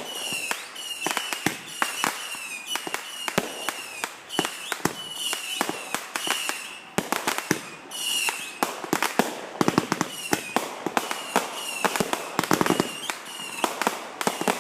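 Consumer fireworks going off in a rapid run of sharp bangs and crackles, mixed with many short whistles that fall slightly in pitch. The bangs come thickest and loudest from about nine to thirteen seconds in.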